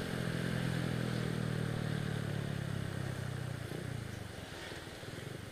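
Single-cylinder four-stroke engine of a Honda Astrea Grand moped, breathing through a swapped-in Honda Supra X 125 FI muffler, running steadily under way; about three seconds in the engine note falls and quietens as the bike slows.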